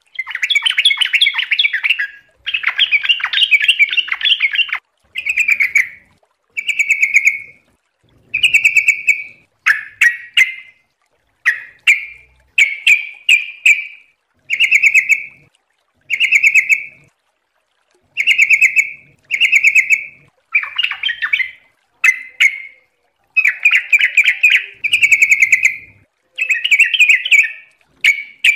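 Yellow-vented bulbul (trucuk) singing: two long, rapid bubbly runs in the first few seconds, then short liquid warbled phrases repeated about once a second with brief gaps between them.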